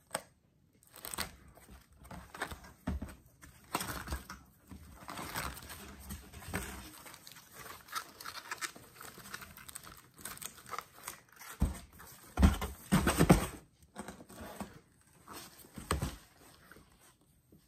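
Plastic binder sleeve pages crinkling and rustling as they are turned, then binders being handled and shifted in a cardboard box, with a few dull thumps about two-thirds of the way through.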